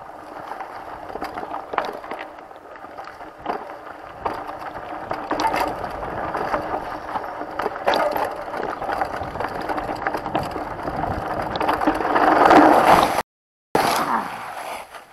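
Mountain bike going fast down a dirt singletrack: a continuous rush of tyres over dirt and dry leaves with many sharp clicks and rattles from the bike over bumps. Near the end the noise swells to its loudest as the front tire washes out on the slick leaves and the bike goes down, and the sound cuts out for a moment.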